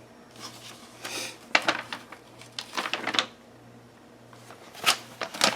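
Handling noises: a few stretches of paper-like rustling, then several sharp clicks near the end, over a faint steady low hum.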